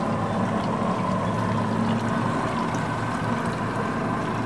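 Yamaha four-stroke outboard motor idling steadily at the dock, left running to charge a weak battery.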